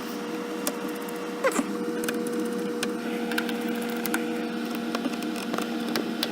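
Small irregular clicks and scrapes of a hand screwdriver turning the screws that hold a laptop's screen hinge brackets, over a steady low hum, with one short falling squeak about a second and a half in.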